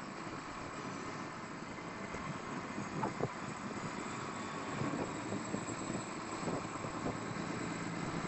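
Mechanized fishing boat's engine running steadily, with a few light knocks about three seconds in.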